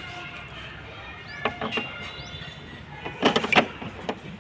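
Knocks and rattling clicks of hand tools against the plastic front bumper and headlamp mounts as they are worked loose: two knocks about one and a half seconds in, then a louder burst of clicking about three seconds in.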